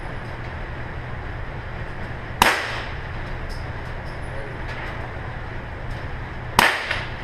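Two handgun shots fired in an indoor range, about four seconds apart, each a sharp crack with a short echo. A steady low hum runs underneath.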